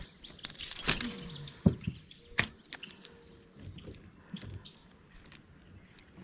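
A few sharp knocks and clicks from handling fishing tackle in a small boat, about one, two and two and a half seconds in, followed by fainter scattered ticks over a quiet background.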